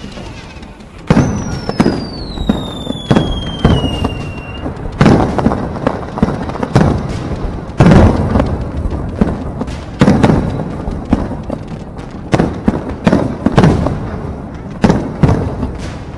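Fireworks display: shells bursting one after another in a rapid series of loud bangs, each echoing. A long whistle falls in pitch over the first few seconds.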